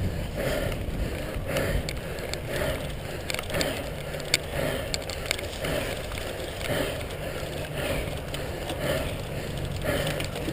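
A cyclocross bike ridden over grass and fallen leaves, heard from a camera riding along: wind on the microphone, tyre and drivetrain noise, and a few sharp rattling clicks. A soft rhythmic pulse comes about once a second.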